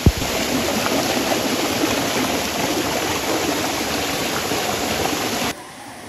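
Shallow rocky stream rushing and splashing over boulders in small cascades, a steady loud rush of water, opening with one brief thump. Near the end it cuts suddenly to a fainter rush of water.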